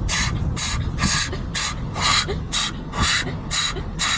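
Automatic car wash spray jets sweeping over the car during the presoak stage, heard from inside the car: a hiss of water on the body that comes round about twice a second, over a steady low rumble of the machinery.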